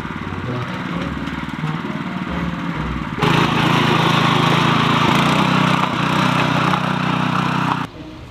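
Riding lawn mower engine running steadily with its cutting blades turning, much louder from about three seconds in, then cutting off suddenly near the end.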